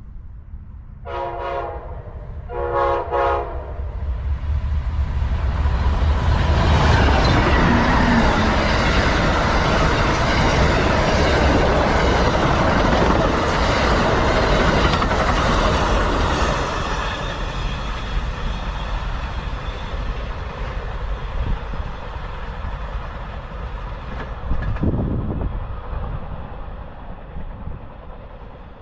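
Amtrak Floridian passenger train sounding two short horn blasts, then passing at speed with a loud rumble of the locomotive and cars that peaks for about ten seconds and slowly fades.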